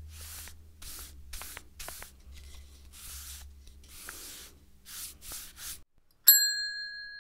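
Sound effects for an animated brush-stroke logo: a quick series of short, scratchy swishes like brush or spray strokes over a low hum, then, about six seconds in, a single bright chime that rings on and slowly fades.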